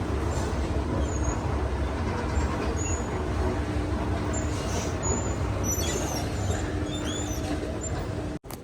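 Steady low rumble of vehicle traffic, with a few short bird chirps in the second half; it cuts off suddenly near the end.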